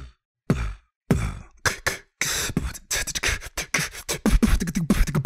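A man beatboxing into a microphone: mouth-made drum hits, a couple of separate hits at first, then about a second in a fast, dense beat with deep low thumps and sharp clicks.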